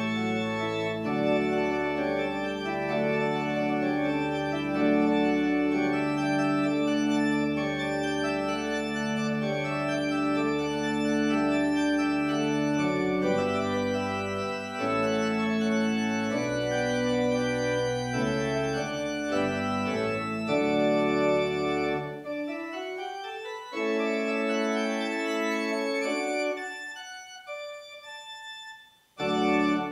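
Organ playing slow, sustained chords over a deep bass line. The bass notes drop out about two-thirds of the way through, and the music briefly fades near the end before resuming.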